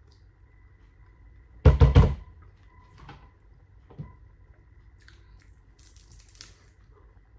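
A quick run of three loud knocks about two seconds in, followed by a single fainter knock about two seconds later.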